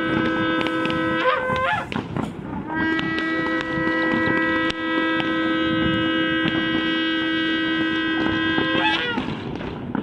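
Shofar blown in long, steady blasts. One held note ends with an upward break about a second and a half in, then after a short pause a second long note is held until it breaks upward again near the end.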